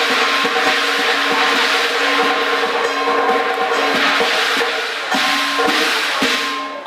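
Cantonese opera percussion ensemble of gongs, cymbals and drum playing loud and busy, with a steady pitched tone held over it that breaks off a few times near the end.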